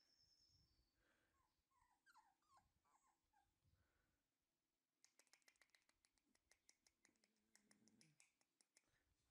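Faint whimpering from a four-week-old puppy: a quick run of short, high squeaks about a second in, then a stretch of soft rapid clicking with a brief low whine near the end.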